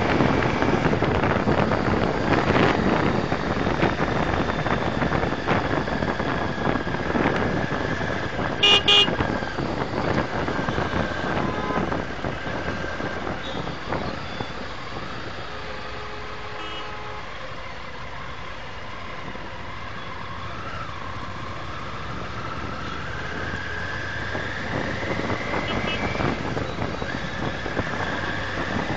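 Road noise from a motorcycle ride in traffic, recorded by the bike's dash camera, with a steady whine running through it. A vehicle horn honks twice in quick succession about nine seconds in. The noise eases off in the middle, then builds again as the whine rises in pitch near the end.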